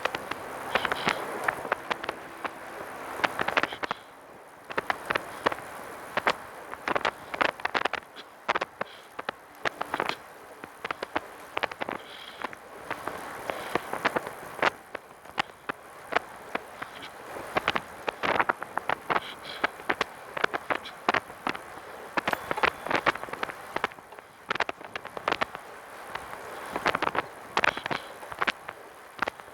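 Irregular, random rattling clicks from a Catrike 700 recumbent trike as it rolls, coming from behind the seat, possibly near the rear wheel, over steady road noise. The cause of the rattle is not yet found.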